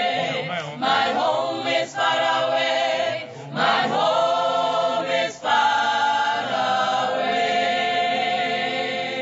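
A mixed group of men and women singing a Setswana-language song in harmony, unaccompanied, in phrases with short breaks between them, ending on a long held chord over the last few seconds.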